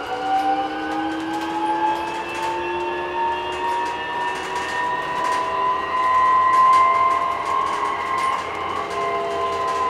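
BYD K9M electric bus's traction motor whining from inside the cabin, its pitch climbing steadily as the bus gathers speed, then levelling off and easing down slightly near the end. Light ticks and rattles sound over the whine.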